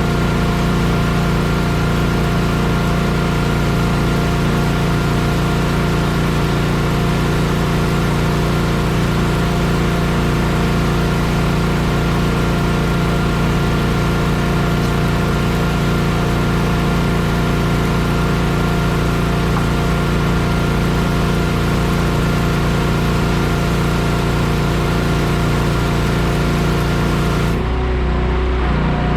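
Engine of heavy paving equipment running steadily. Its sound changes abruptly near the end.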